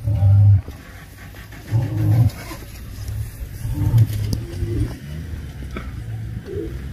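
Male lion roaring in deep grunts: three low calls of about half a second each, spaced about two seconds apart. A low steady hum follows under them toward the end.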